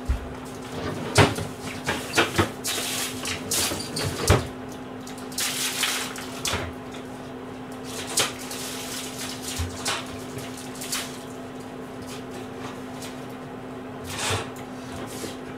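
Off-camera kitchen handling: scattered knocks, clicks and a cupboard or door opening and closing, with a few brief rustles, over a steady low hum.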